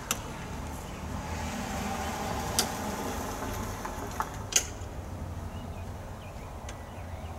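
Power rake's small engine running at a distance, a steady low hum, with a few sharp clicks over it.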